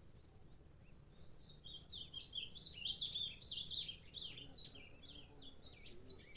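Saffron finch (canário-da-terra) singing: a fast run of high, chirping notes that starts about a second and a half in and carries on, loudest around the middle.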